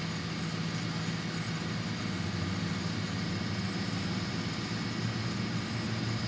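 Cassette tape deck playing back a steady low drone over tape hiss.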